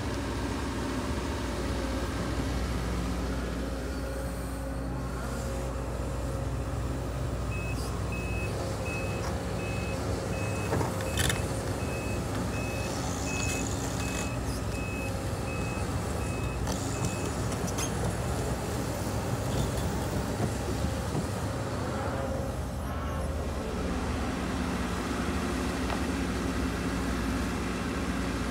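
Case CX210D excavator's diesel engine running steadily as the machine works. From about seven seconds in to about seventeen seconds in, a backup alarm gives a steady series of evenly spaced high beeps. There is a single sharp clank about eleven seconds in.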